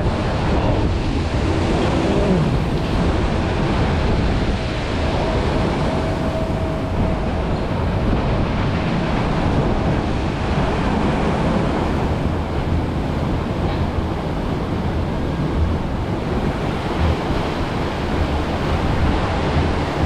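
Steady rush of water flowing through a river rapids ride channel around a round raft, with wind on the microphone.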